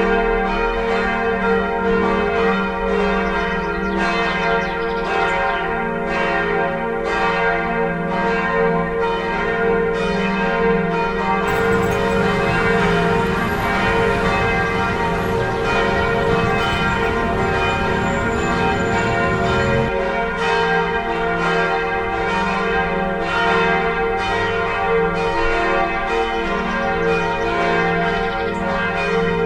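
Church bells pealing: struck again and again, their ringing tones overlapping and sustained. A broad rushing noise sits over the bells for several seconds in the middle.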